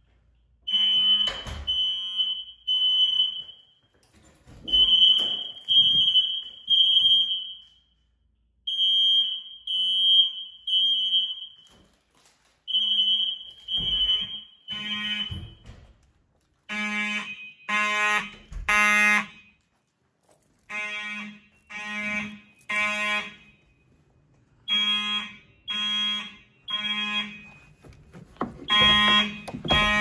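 Fire alarm horns sounding the temporal-three evacuation pattern: three buzzy blasts, then a pause, repeating about every four seconds. The blasts grow louder and softer from group to group.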